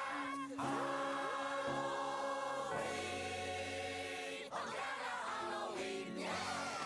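Ensemble of voices singing the closing notes of a song over musical backing, with long held notes near the middle.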